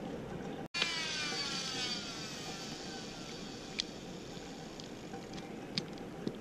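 Electric bone saw switched off with a click about a second in, its motor whine falling in pitch as it winds down over a couple of seconds. A few single sharp clicks follow.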